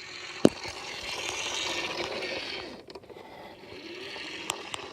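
Van moving off: a rushing noise that builds, holds and fades over about three seconds. There is a sharp click just before it and two more clicks near the end.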